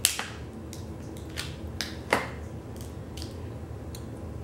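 Scissors snipping through a crab leg's shell: a few short, sharp crunching snips, the loudest right at the start and another strong one about two seconds in.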